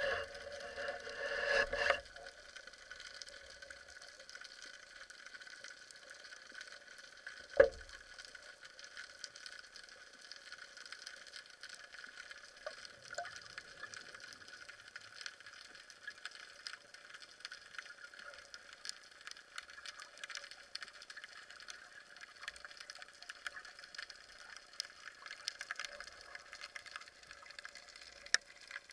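Underwater ambience heard through a camera housing: a steady faint hiss crackling with many small clicks, after a short rush of noise at the start. About eight seconds in comes one sharp knock, the loudest sound.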